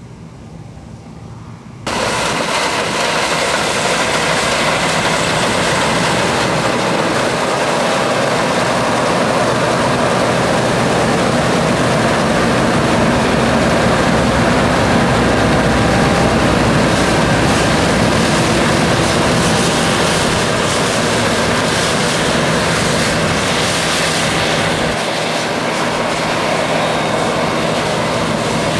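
Fendt combine harvester running while harvesting: a steady engine and machinery drone. It starts abruptly about two seconds in.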